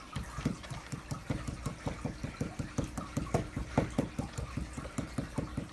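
A small pointed digging tool scraping and chipping at a fossil dig brick in quick, even strokes, about five a second.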